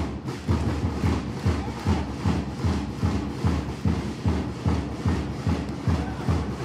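A supporters' cheering drum beaten in a steady, even rhythm, a little over two beats a second.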